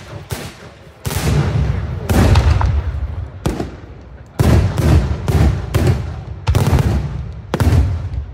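Daylight aerial fireworks bursting overhead: a rapid, irregular series of about nine loud bangs, each trailing off in a rough crackle before the next.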